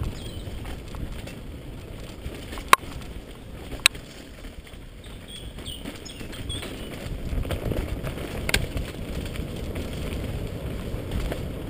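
Mountain bike descending a dirt singletrack, heard from a camera riding along: a steady low rumble of tyres and rattling bike, with three sharp knocks, nearly three seconds in, about four seconds in, and past eight seconds.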